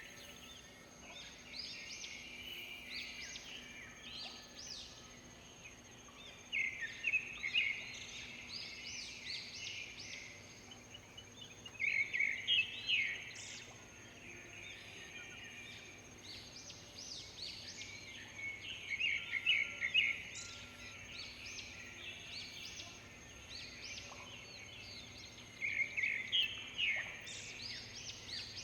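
Wild birds calling in a morning chorus, one of them repeating a loud burst of rapid chattering notes about every six to seven seconds while others chirp in between. A steady thin high tone sits underneath.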